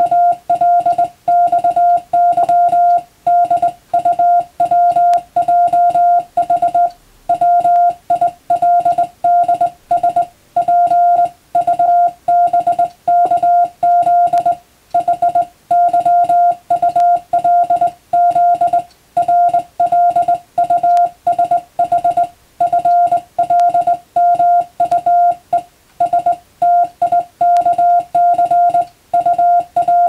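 Morse code sent by hand on a telegraph key, heard as a steady keyed tone of rapid dots and dashes. It runs in five-letter groups of random letters, as in radiotelegraph receiving practice, with short pauses between the groups.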